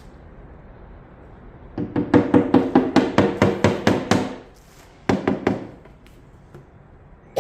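A scraper chattering across a wooden dresser top in a quick run of clicking strokes, about five a second, as it lifts stripper-softened finish. A shorter second pass follows near the end.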